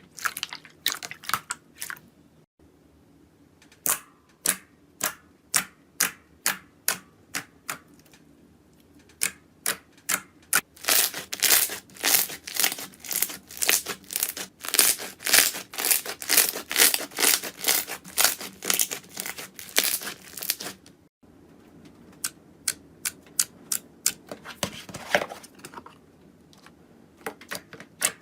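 Slime being squeezed and poked close to the microphone, making sharp crackling clicks. They come about two a second at first, turn into a dense, fast crackle through the middle, then thin out to scattered clicks.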